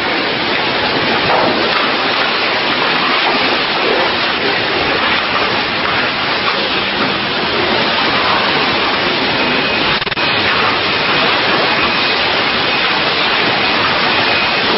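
Steady, loud hiss of water spraying from a car wash pressure washer, with a brief dip about ten seconds in.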